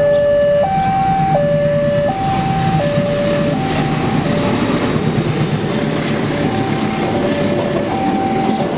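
Railway level-crossing alarm sounding two alternating tones, high and low, each held about three-quarters of a second. From about two seconds in, a diesel locomotive and its passenger carriages run through the crossing, and their noise grows until it partly covers the alarm.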